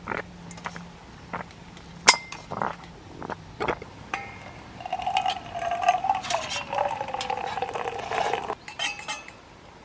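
Camp dishes clinking: a string of separate clinks and knocks, then a ringing tone for a few seconds, part of it sliding down in pitch.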